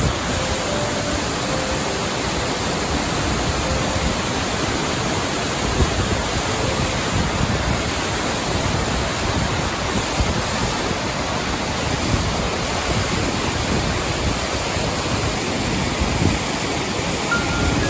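Waterfall rushing steadily: a dense, even noise with no let-up.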